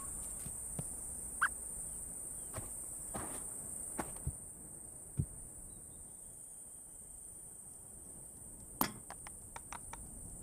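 Quiet dry-scrub ambience: a steady high insect drone, with scattered soft clicks and taps and a sharper tap followed by a few small ticks near the end.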